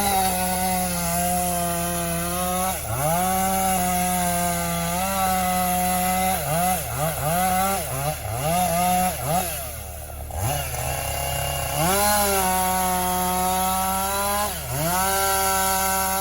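Chainsaw running at high revs, its pitch dropping and climbing back again about ten times as the throttle is eased off and reopened, with a brief lull about two thirds of the way through.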